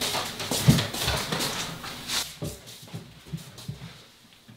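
Scattered knocks and thumps of a wooden nightstand being carried and set down, with footsteps on the floor; the sounds grow fainter toward the end.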